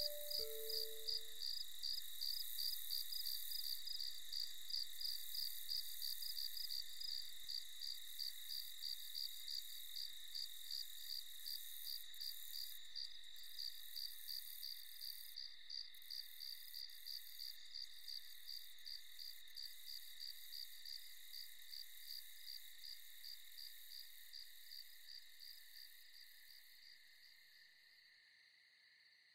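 Crickets chirping at night: a rapid, even pulsing trill over a steady high ringing, slowly fading away and dropping off more quickly over the last few seconds.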